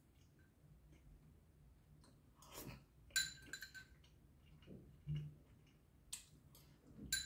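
Metal fork clinking against a ceramic noodle bowl, in a quick cluster of light chinks about three seconds in and once more just before the end.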